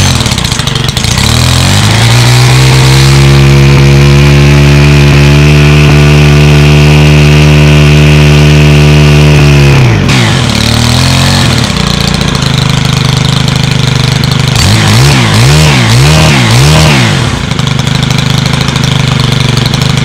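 A Stihl pole saw's small 4-MIX engine is pull-started on full choke and catches almost at once. It runs at steady high revs for about eight seconds, then drops to idle. A few quick throttle blips come around fifteen seconds in before it settles back to idle.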